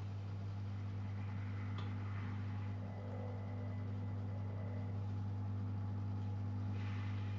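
Zanussi Jetsystem Turbodry ZWD 1000 washer-dryer running with a steady low hum, with a faint click about two seconds in.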